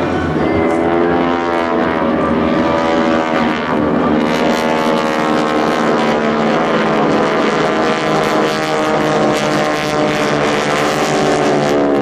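The radial engines and propellers of six SNJ Texan trainers droning as the formation passes overhead. The drone's pitch slides up and down as the aircraft go by.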